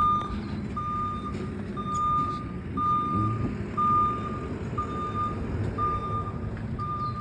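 Reversing alarm of a garbage truck beeping steadily, one beep about every second, over the low rumble of the truck's engine.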